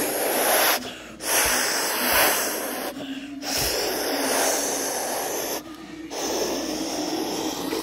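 A child making a jet engine noise with the mouth while flying a toy airliner: long breathy hissing whooshes, four of them with short breaks for breath.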